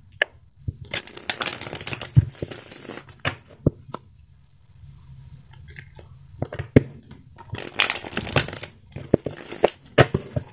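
Tarot cards being shuffled by hand: papery swishing and riffling of the deck in two longer runs, about a second in and again near the eighth second, with scattered short taps and clicks between.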